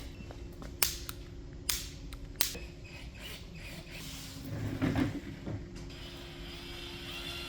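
Piezo igniter of a barbecue lighter clicking, three or four sharp clicks in the first two and a half seconds, as it is fired to test for a spark across the potato cannon's chamber screws. A louder handling knock and rustle about five seconds in.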